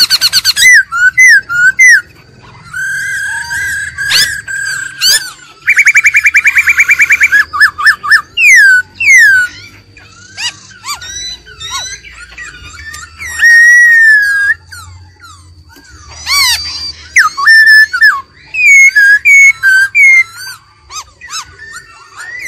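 Black-throated laughingthrush singing loud, varied whistled phrases that slide up and down in pitch, with a fast rattling trill of about eight notes a second around six seconds in.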